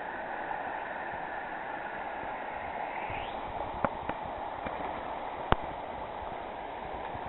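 River water rushing steadily, with a few sharp knocks about halfway through, the last the loudest.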